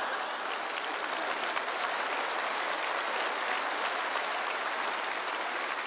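Large live audience applauding in dense, steady clapping, with laughter mixed in.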